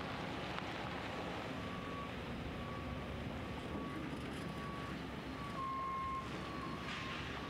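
Vehicle backup alarms beeping about once a second over a steady rumble of site machinery and wind; a second, louder and slightly lower-pitched beeper joins near the end.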